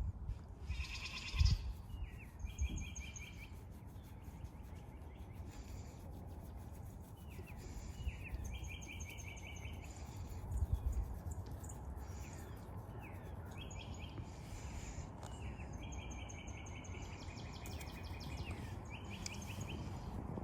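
A bird calling over and over: each call is a short upward-sliding note followed by a quick run of clipped notes, repeated every few seconds. Under it runs a steady low rumble, with a couple of soft thumps.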